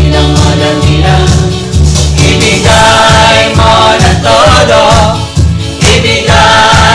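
Upbeat praise-and-worship song played by a live band with a steady bass beat, with a group of singers coming in strongly about two and a half seconds in.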